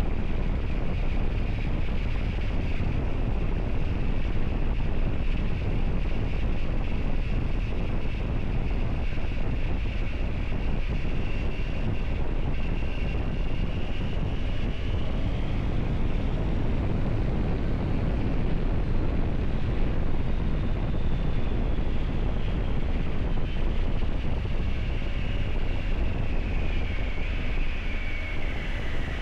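Triumph Tiger 900 GT's three-cylinder engine running under way at a fairly steady pace, mixed with heavy wind rush on the microphone. The engine note drifts only slowly up and down, with no sharp revving.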